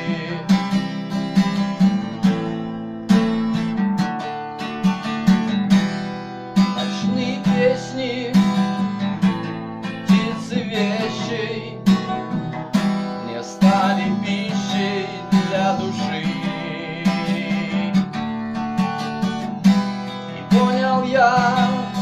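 Acoustic guitar strummed and picked in a steady rhythm, an instrumental break between verses of a song.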